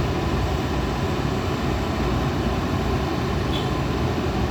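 Heavy diesel engine running steadily, from an excavator or heavy truck.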